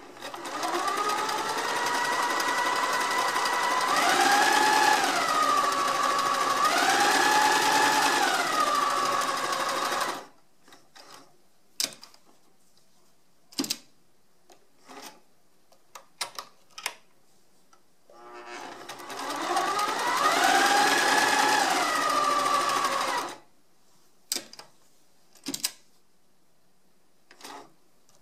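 Sears Kenmore 1050 three-quarter-size sewing machine stitching in two runs, one of about ten seconds and a shorter one later. Its motor whine rises and falls as the speed changes. Between the runs come scattered light clicks.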